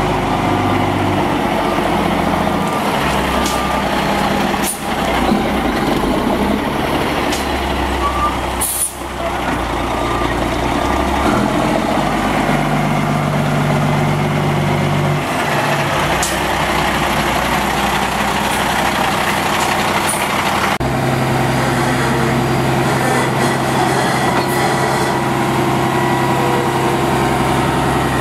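2004 Kenworth roll-off truck's diesel engine running, its speed stepping up and down, with short air-brake hisses about five and nine seconds in and another near twenty seconds; from about twenty-one seconds the engine holds a steady speed.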